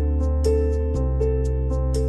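Gentle background music: sustained low chords changing about every second and a half under a simple melody, with a light tick about four times a second.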